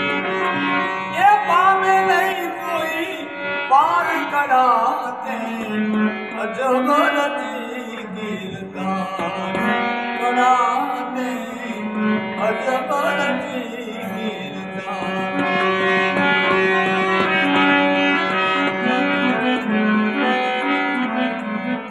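Harmonium playing a bhajan melody with steady sustained reed chords, while a man's voice sings long, sliding, drawn-out notes over it through roughly the first two-thirds; near the end the harmonium carries on alone.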